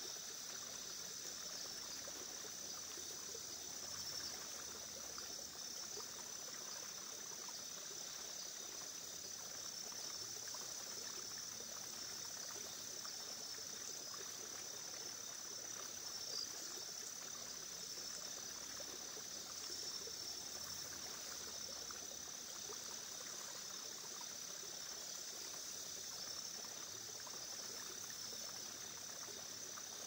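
Crickets chirring steadily at a high pitch over gently flowing, trickling water.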